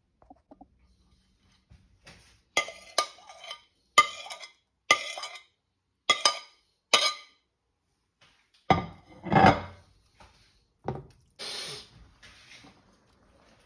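A spoon clinking and scraping against a plate and a steel pan as onion and then cream are spooned into the curry. There is a run of about seven sharp clinks, then a longer, heavier scrape about two-thirds of the way in, and a short burst of noise near the end.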